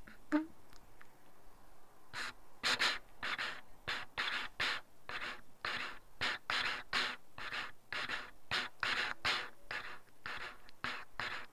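Rapid, heavy breathing or panting: a run of short breaths, about two to three a second, starting about two seconds in.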